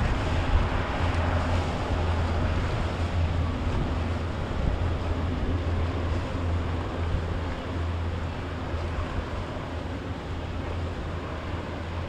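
Steady low engine hum of a Chris-Craft motorboat cruising slowly past, mixed with water wash and wind noise on the microphone. It grows slightly fainter over the stretch.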